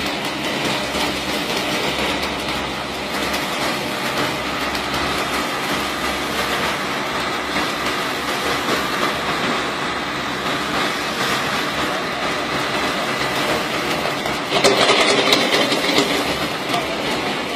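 Steady heavy mechanical rumble and clatter, which gets louder for about two seconds near the end.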